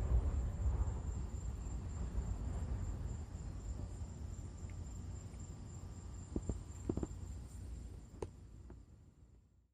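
Low rumble of a passing jet aircraft fading away under a steady high-pitched insect trill, like crickets. A few sharp clicks sound near the end before everything cuts off.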